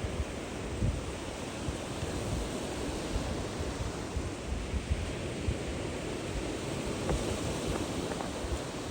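Steady rush of wind and sea, with wind buffeting the microphone in irregular low gusts.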